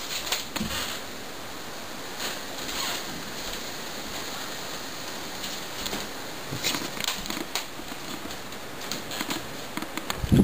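Camcorder microphone hiss with scattered light clicks and bumps of the camera being handled and carried, and a louder low thump near the end.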